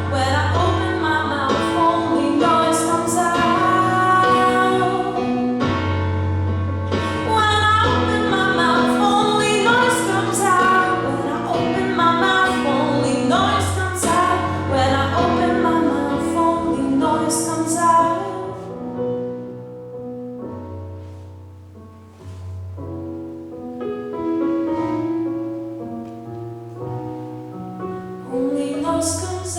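Female voice singing a pop ballad with piano accompaniment. About two-thirds of the way through, the music drops to a softer, sparser passage, then grows louder again near the end.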